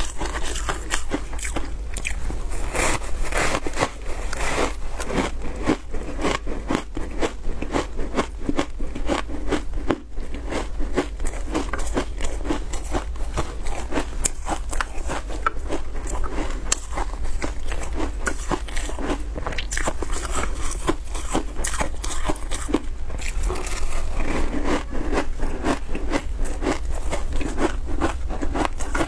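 Crunching and biting through a block of shaved ice coated in milk powder, a dense run of crisp cracks and crackles as the ice breaks and is chewed.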